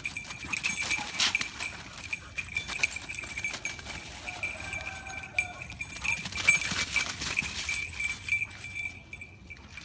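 Two dogs chasing and play-wrestling over dry leaves and grass: irregular scuffling and leaf-crunching, with short animal vocal sounds, loudest about a second in and again past the middle. A steady thin high tone runs underneath.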